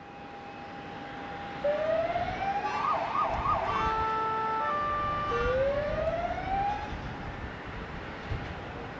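Electronic emergency-vehicle siren: rising wails, a fast warbling yelp, then alternating steady tones and another rising wail that fades out past the middle. Underneath runs the steady whine and rumble of an airliner's jet engines on the runway.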